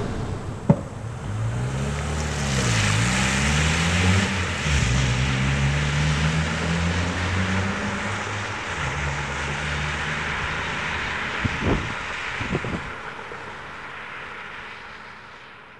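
Car driving away: its engine note rises and falls several times, with steady road and tyre hiss on a wet street, and it fades toward the end. A single sharp thump comes about a second in.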